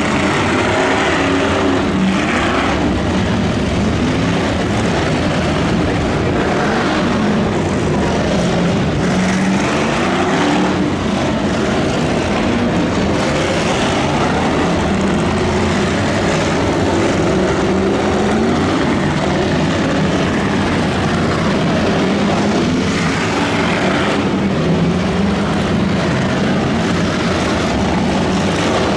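Race car engines running and revving, their pitch rising and falling again and again.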